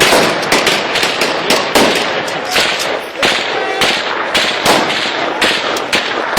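Rapid, irregular string of sharp bangs, several a second, going on without a break.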